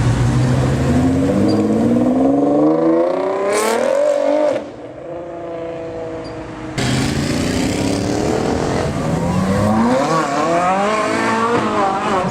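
A performance car engine accelerating hard, its pitch climbing steadily for about four seconds before dropping away. A second hard acceleration starts suddenly about seven seconds in and climbs again.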